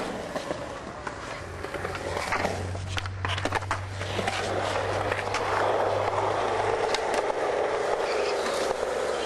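Skateboard wheels rolling on concrete with a few sharp clacks of the board, then, from about four seconds in, a long steady grind of the board along a ledge.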